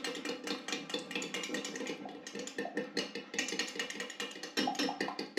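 A utensil stirring melted glycerin soap base in a container, clicking and scraping rapidly and unevenly against its sides.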